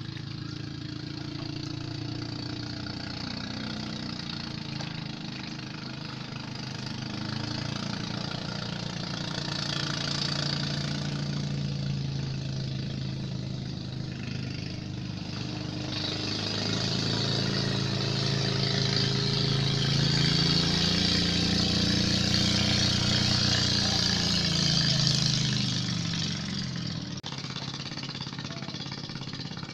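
An engine running steadily, its pitch drifting up and down. It grows louder through the second half and drops off shortly before the end.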